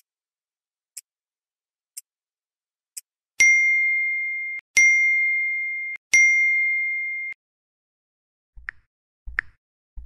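A clock ticking four times, once a second, then three ringing electronic dings about a second and a half apart, each struck sharply and fading over about a second. Two short soft taps come near the end.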